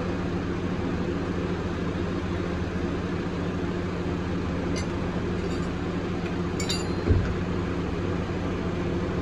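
Honda City's four-cylinder petrol engine idling steadily with the bonnet open. A couple of light metal clinks come just before five and about six and a half seconds in, and a short dull thump about seven seconds in is the loudest moment.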